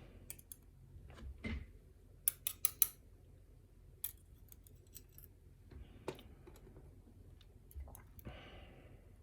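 Light metallic clicks and taps of small lock pins being handled and set down, with a quick run of about four sharp clicks about two seconds in.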